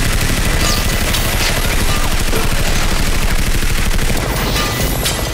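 Six-barrel rotary machine gun (minigun) firing one continuous rapid burst, the shots so fast they run together into a steady loud rattle.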